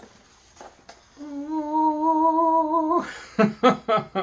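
A man humming: one long held note, then a quick run of short hummed notes near the end.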